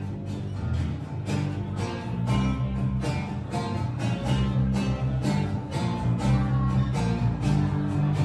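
Music with a steady beat over low sustained notes.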